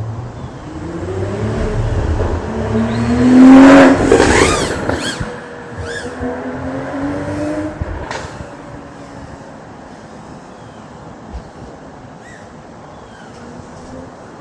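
Micro FPV quadcopter's tiny brushless motors (RCINPOWER 1003, 14,000KV) buzzing as it flies. The sound builds to a loud close pass about four seconds in, its pitch sweeping up and down with throttle, then drops away to a fainter, steadier buzz.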